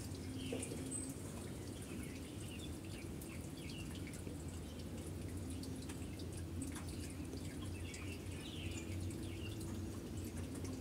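Quiet room background: a steady low hum with faint, scattered ticks and small chirps.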